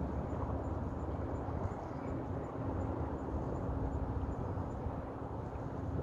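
Steady outdoor ambient noise with a low rumble, under a faint high-pitched ticking that repeats about three times a second.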